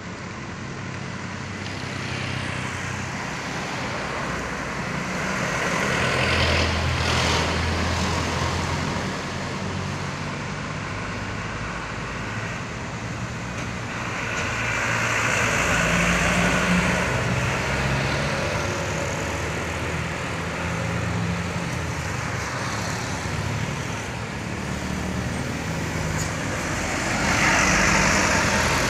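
Light trucks and motorbikes passing one after another on a road, engines humming and tyres hissing. The sound swells as a vehicle goes by about six seconds in, again around fifteen seconds, and loudest near the end as a box truck passes close.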